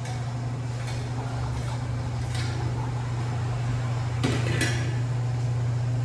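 A utensil stirring shrimp and sauce in a frying pan, with light clinks of metal on the pan and two sharper clinks about four seconds in, over a steady low machine hum.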